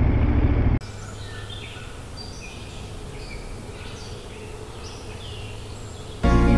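A motorcycle engine running for under a second, then a sudden cut to birds chirping and trilling over a low steady hum. Music begins near the end.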